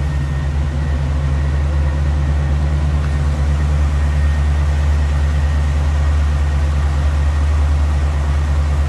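Ford 302 V8 with a four-barrel carburettor and headers idling steadily, heard at the open hood.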